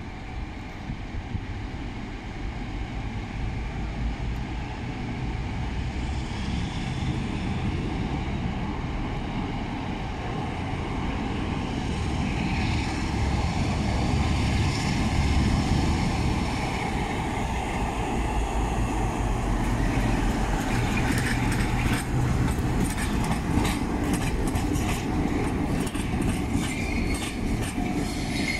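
Two Class 47 diesel locomotives, running with their Sulzer twelve-cylinder engines, approach and pass hauling a train of coaches. The engine note grows louder, and from about two-thirds of the way through, a quick run of wheel clicks over the rail joints joins it.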